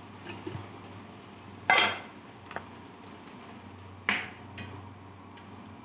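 Kitchenware, a glass pot lid and a ceramic lid, clattering as it is set down on a granite countertop: two sharp knocks about two and a half seconds apart, the first the loudest, with a couple of lighter clicks.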